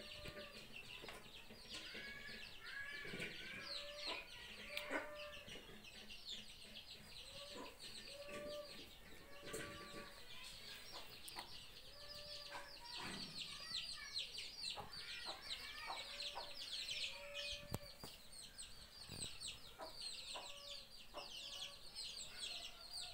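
Chickens clucking with short, repeated calls, over a dense, continuous high chirping of small birds.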